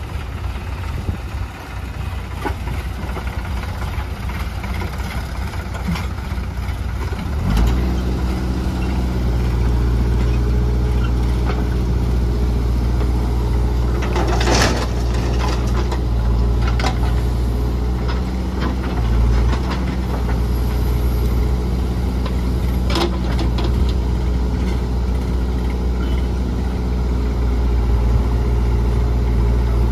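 Diesel engine of a JCB 3DX backhoe loader running, with a tractor engine alongside. A little over a quarter of the way in, the engines rise to a higher, steady working note that holds. About halfway through there is a loud thud as a bucketful of mud is dumped into a tractor trolley, with lighter clanks later.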